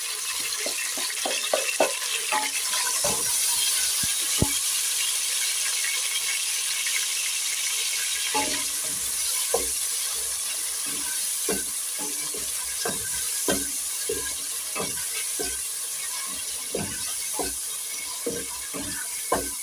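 Tomatoes frying with onions, carrots and green peppers in hot oil in a cooking pot, with a steady sizzle. A spoon stirring scrapes and knocks against the pot, and the knocks come more often in the second half.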